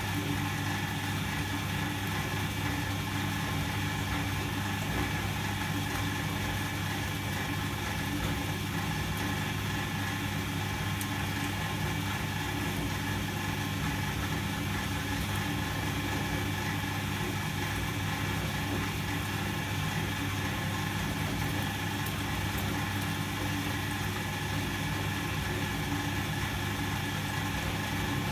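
Volga-8R washing machine running in its wash cycle, its electric motor giving a steady, unchanging hum.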